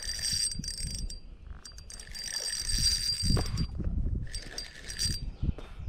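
Spinning fishing reel being cranked on a slow retrieve: a high-pitched whine in three runs of about a second each, with pauses between.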